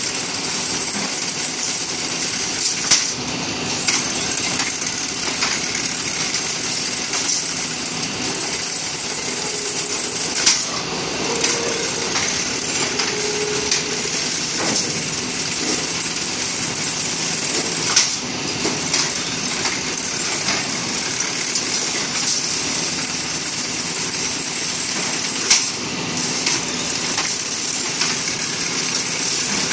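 CNC rebar straightening and stirrup bending machine running, a steady mechanical noise as the wire is fed through, with a sharp clack about every seven and a half seconds.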